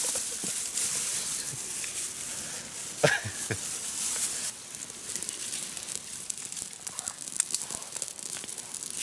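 Crackling and crinkling noises: a high hiss for the first four and a half seconds, then dense sharp crackles, with a short vocal sound about three seconds in.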